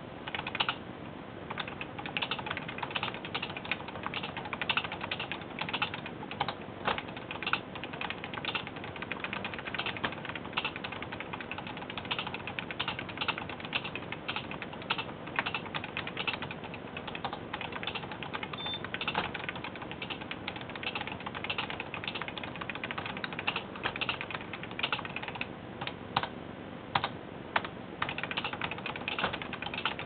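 Keys of a Casio CW-11 electronic typewriter being typed on, a fast uneven stream of plastic key clicks, with the print mechanism ratcheting as it prints onto thermal paper.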